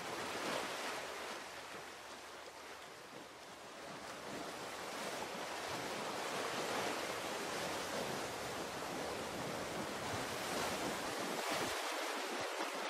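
Ocean surf sound opening a dark ambient drone track: a dense wash of noise that swells and ebbs slowly like breaking waves. The deep low end drops away near the end.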